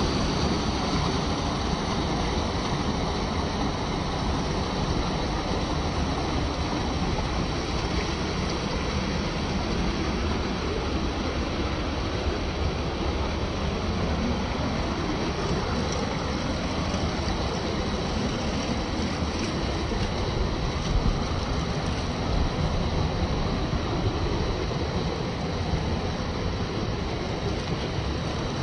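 Steady rushing water. Under it, the faint whine of the RC crawler's small electric motor rises and falls in pitch as it is driven.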